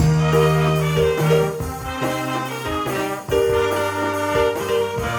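Instrumental band music with held brass notes over a bass line, in a swing style.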